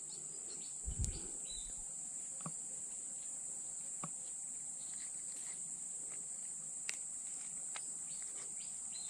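Steady high-pitched insect chorus, with a few faint clicks and a soft thump about a second in.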